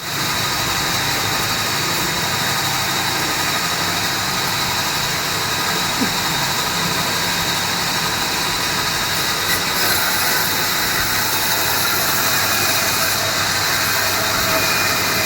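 A motorized woodworking machine running steadily, with a constant high whine over a dense mechanical noise.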